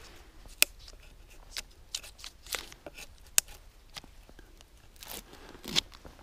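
Knife blade scraping and tearing bark off a fallen birch log: a run of short, irregular scrapes and rips with two sharp clicks, and a longer scrape about five seconds in as a strip comes away.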